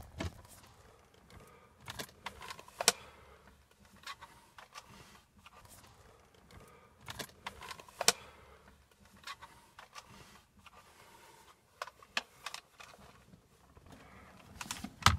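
Scattered sharp clicks, taps and rustles of a handheld phone being moved about close to a car dashboard, with the louder clicks about three, eight, twelve and fifteen seconds in.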